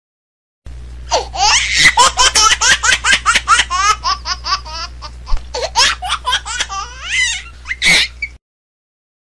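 High-pitched laughter, a long run of rapid laughs over a steady low hum. It starts just under a second in and stops about eight seconds in.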